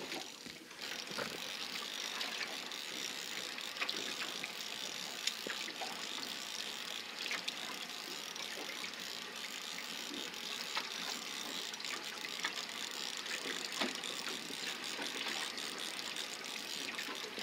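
Fishing reel being wound in: a steady mechanical hiss with many scattered light clicks.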